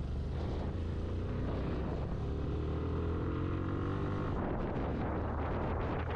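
Motorcycle engine running under load and picking up speed, its note rising over the first few seconds. Wind noise on the microphone grows from about four seconds in as the speed climbs.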